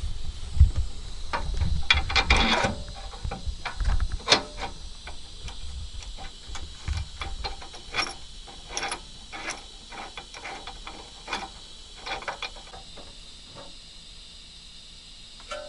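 Ratcheting wrench clicking in short irregular runs as a suspension nut is worked, with a few louder metallic knocks; the clicks thin out toward the end.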